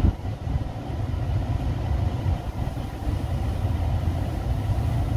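Porsche Panamera Hybrid's engine idling, a steady low rumble heard from inside the cabin.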